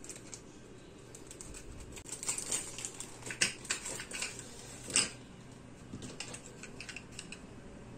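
Scattered light clicks, taps and rustles of small objects being handled, the loudest about five seconds in.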